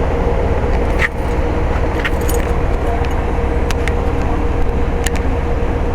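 1999 Rheem 4-ton heat pump condensing unit running in cooling mode: a steady low hum with a constant mid-pitched tone from the compressor and fan. A few light ticks are heard over it.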